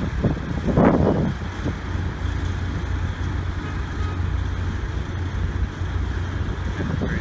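Drilling rig machinery running with a steady low engine drone, with a brief louder burst about a second in.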